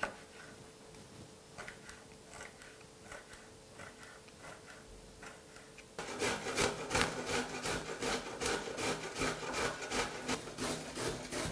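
A knife cuts hot red pepper on a plastic cutting board, giving a few quiet taps. About halfway through it changes abruptly to loud, even rasping strokes as a parsley root is grated on a metal box grater.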